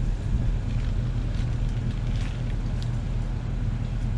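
Steady low engine hum with a few faint ticks.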